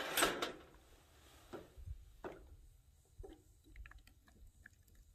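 Metal cooking pot scraping on a camp stove's steel grate as it is lifted off, loudest in the first half-second, followed by a few faint clicks and knocks.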